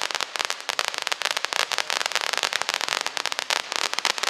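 Pyrotechnic ground fountain (RS2572 Luxury Fountain) burning, throwing out sparks with a dense, continuous crackling.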